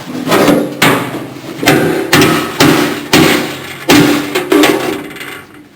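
Hammer blows on a metal bolt, about eight strikes a little over half a second apart, each ringing briefly, knocking a seat-mounting bolt down through the race car's floor.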